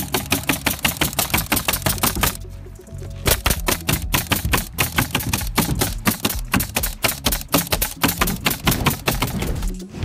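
Pneumatic cap nailer firing cap nails into synthetic roof underlayment in rapid succession, several sharp shots a second, with a short break about two and a half seconds in.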